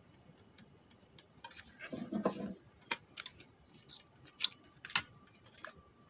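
Sheet-metal chassis and parts of a dismantled car stereo being handled: a short metallic clatter about two seconds in, then a few sharp separate clicks.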